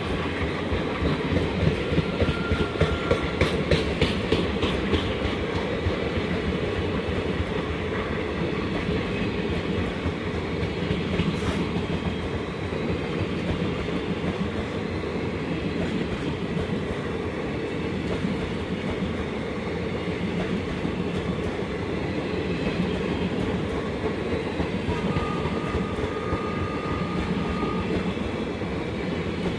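Passenger coaches of an accelerating express train rolling past, with the rhythmic clickety-clack of their wheels over rail joints over a steady rumble. The clatter is sharpest in the first few seconds.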